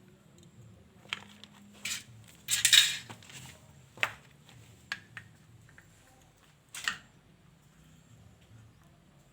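Small metal carburettor parts and tools clinking and clattering as they are handled on a workbench: a handful of sharp knocks, the loudest a short rattle about two and a half seconds in.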